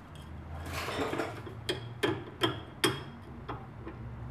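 Adjustable wrench working a BMW E46's inner tie rod loose at the steering rack: a short metal scrape about a second in, then four sharp metallic clicks in quick succession and a fainter one as the wrench is repositioned and turned.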